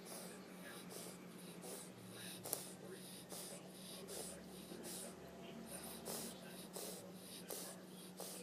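French bulldog snoring with quick, noisy breaths, about one and a half a second, breathing fast in its sleep. A sharp click about two and a half seconds in.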